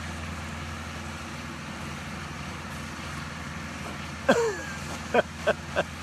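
A goat bleats once about four seconds in, a short cry falling in pitch, over the steady drone of an idling engine. A few sharp clicks follow.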